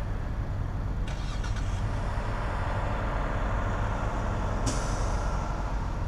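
Steady deep rumble of idling truck and vehicle engines, broken by two hisses of released air: a short one about a second in, and a sharper, louder one near the end that starts suddenly and fades away, like a semi-truck's air brakes letting off.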